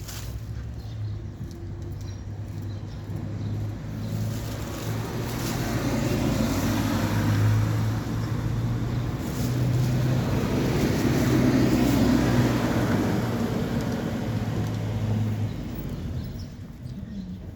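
Motor vehicle passing close by: a low engine hum under road noise that builds to a peak midway, then fades away.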